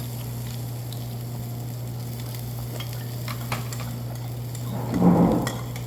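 Meat sizzling on a grill, a steady crackle with scattered small pops over a constant low hum. About five seconds in there is a brief, louder noise.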